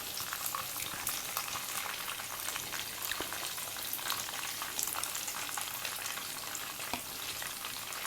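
Coated marinated chicken pieces frying in hot oil in a pan: a steady sizzle with a dense, continuous crackle of popping oil.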